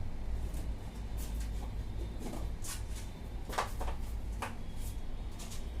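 Scattered light clicks and rustles of kitchen items being handled, over a steady low hum.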